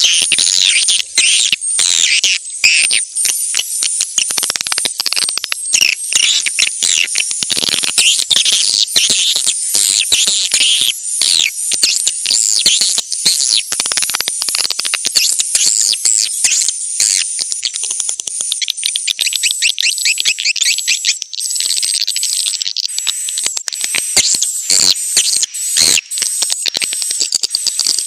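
A dense, continuous chorus of swiftlet chirps and rapid twitters, high-pitched and overlapping without a break. These are swiftlet courtship calls, the kind of call recording played to draw swiftlets into nesting houses.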